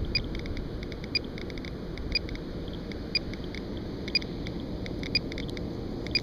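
GQ GMC-300E Geiger counter clicking rapidly and irregularly, with a louder tick about once a second. The dense clicking marks a high count rate of roughly 800 counts per minute over a radiation hot spot in the sand.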